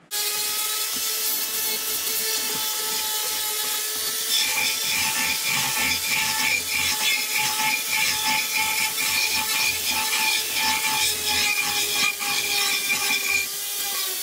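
Foredom flex-shaft rotary tool running with a steady whine as its Saburrtooth carbide burr grinds into catalpa wood. The grinding grows stronger about four seconds in and eases near the end.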